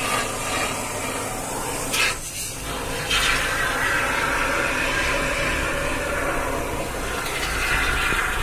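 Pressurised can of polyurethane insulation foam hissing steadily as foam is pushed into the hollow of a refrigerator wall, with a brief break about two seconds in.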